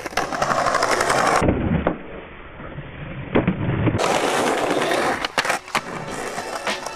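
Skateboard wheels rolling on rough pavement, with a few sharp clacks of the board a little after five seconds in.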